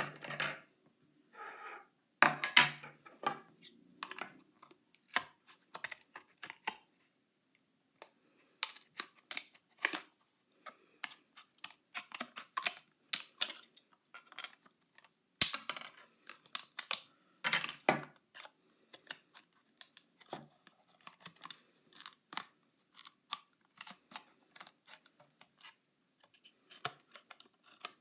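Scissors cutting stiff thermoformed plastic: an irregular run of sharp snips and clicks, with a brief pause about a third of the way in.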